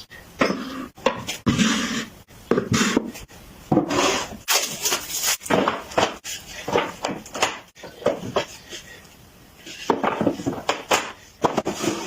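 Wood rubbing and scraping against wood in irregular strokes, with a few sharp knocks in between.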